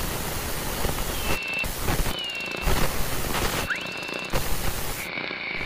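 Loud static hiss that cuts in and out several times, with brief high whistling tones and a quick rising squeal in the middle, as when tuning between stations.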